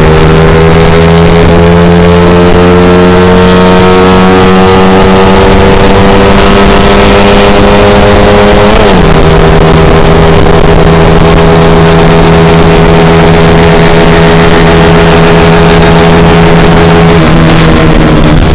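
Suzuki Shogun four-stroke motorcycle engine running hard at high revs on a top-speed run. Its pitch climbs slowly over the first half, dips sharply about halfway through, then holds steady, with a slight drop near the end.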